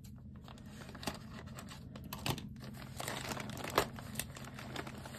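Plastic poly mailer bag crinkling and rustling with scattered sharp crackles as hands handle it and open it.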